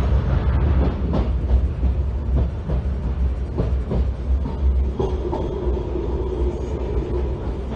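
Ride noise inside a moving SNCF TER regional train: a steady low rumble with irregular clacks of the wheels over track joints, and a humming whine that joins in about five seconds in.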